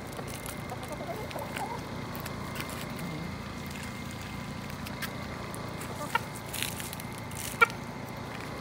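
Backyard hens clucking softly, with a few sharp clicks, the loudest near the end, over a steady outdoor hiss.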